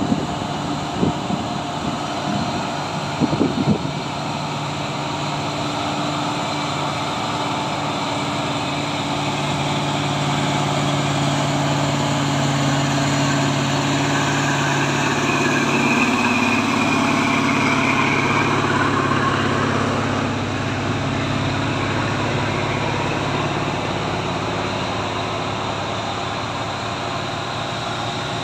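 Heavy diesel truck engines running on a steep climb: a steady low engine note, with another loaded truck passing and growing louder around the middle. A few short low thumps come in the first few seconds.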